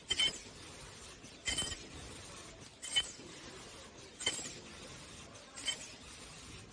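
KN95 mask machine running through its production cycle: a short, sharp stroke with a brief high ring about every 1.4 seconds, five in all, over a steady low machine background.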